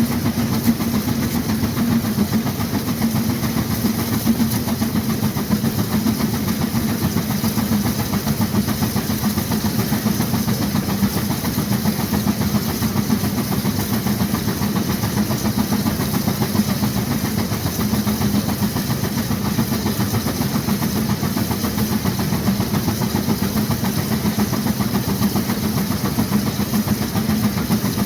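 1916 Case 40 HP steam traction engine working hard under the load of a Baker fan: a steady, unbroken run of exhaust beats and hiss with the fan's roar.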